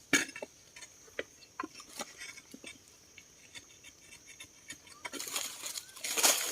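Scattered light clinks and knocks of hand digging in dry forest soil, with a longer scraping rustle near the end. A steady high insect drone runs behind.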